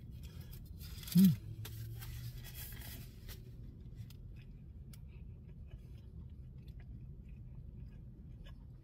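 A cheeseburger being bitten into and chewed, its paper wrapper crinkling for the first three seconds or so, with a brief hummed "mm" about a second in as the loudest sound. After that, quieter chewing over a low steady hum.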